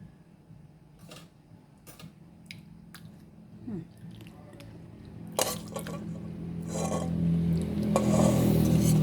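Scattered light clinks and knocks of dishes and utensils. Then a low hum with a rushing noise swells steadily louder over the last few seconds.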